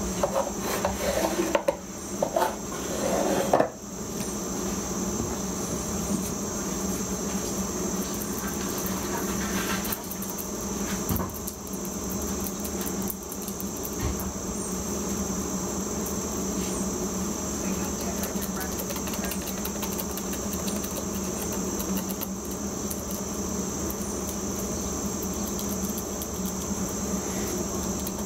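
Wooden blocks and a plastic glue bottle knocking and clattering on a workbench a few times in the first four seconds, then light rubbing as glue is spread on a wooden block, over a steady high-pitched drone and low hum.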